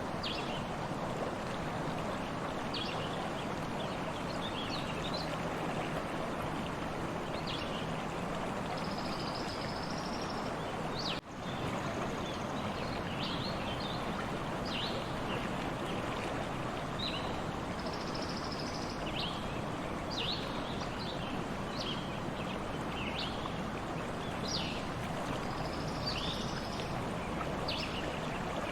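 Stream water flowing steadily, with small birds chirping repeatedly over it. The sound drops out for an instant about eleven seconds in.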